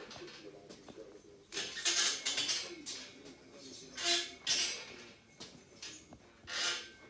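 Footsteps of a person walking on a Genium X3 prosthetic leg between parallel bars: shoes scuffing on a wooden floor, with light clicks. There are a few separate scuffing bursts, the longest about two seconds in.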